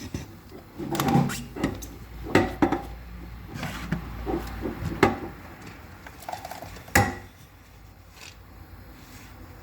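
Kitchen utensils being handled while straining blended ginger through a sieve: a series of separate knocks and clinks, the loudest about five and seven seconds in.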